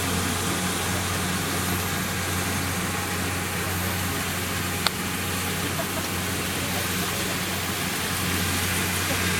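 Kubota DC60 combine harvester running steadily: a constant low engine hum under an even mechanical noise. One brief sharp click about five seconds in.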